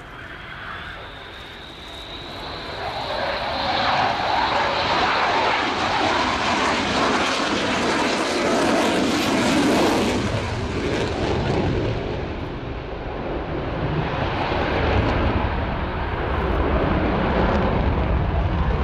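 Lockheed Martin F-22A Raptor's twin Pratt & Whitney F119 afterburning turbofans passing close, with a high engine whine that rises as the roar builds over the first few seconds. The roar peaks about halfway through with a hissing top end, then eases into a lower, steady rumble as the jet moves off.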